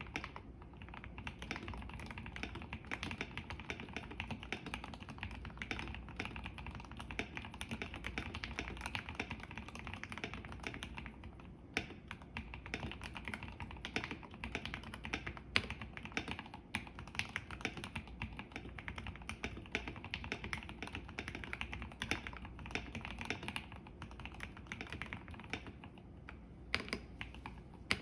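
Continuous fast typing on a KBD75 V3.1 mechanical keyboard with an aluminium plate and Gateron CJ linear switches: a dense stream of keystroke clacks, with a few louder strikes scattered through.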